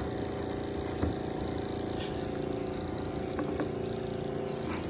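Small battery-powered electric transfer pump running steadily with an even hum, flushing clean water through to rinse out the bleach (sodium hypochlorite) it was pumping. A few faint clicks.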